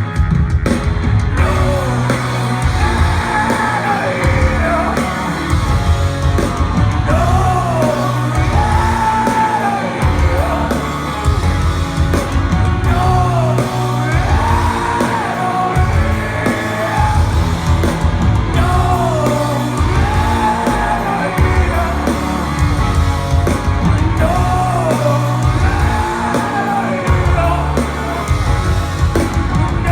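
Live rock band playing in a large hall with the song's vocal line sung and shouted over drums, bass and guitars; the crowd's singing along likely blends with the lead vocal.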